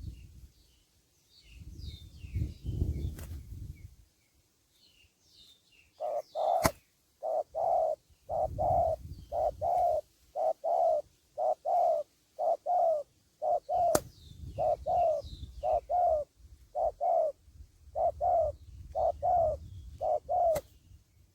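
Spotted dove cooing: a long run of short low notes in repeated phrases, starting about six seconds in. Before it there is a low rumble and faint high chirps from small birds, and a few sharp clicks cut through the cooing.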